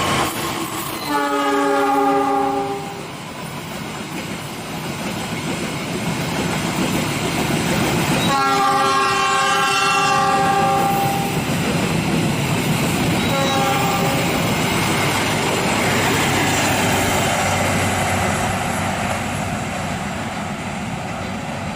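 Train horn sounding three blasts as a train runs past: one of about a second and a half, a longer one of about three seconds, then a short one, each a steady multi-note chord. The wheels rush and clack on the rails underneath throughout. The horn is a warning for an unguarded level crossing.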